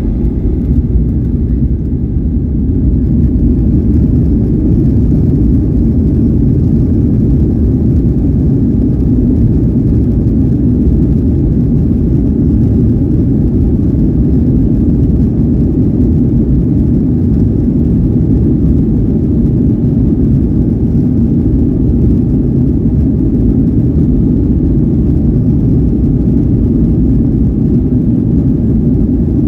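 Boeing 737-900ER's CFM56-7B jet engines heard from inside the cabin, spooling up over the first few seconds, then running steadily at takeoff power as a loud, low rumble during the takeoff roll.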